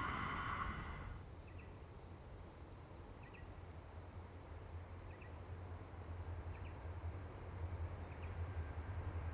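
The sound of a passing freight train dies away over the first second, leaving quiet rural ambience: a steady low rumble and a faint short chirp repeating about every second and a half. The rumble grows louder near the end.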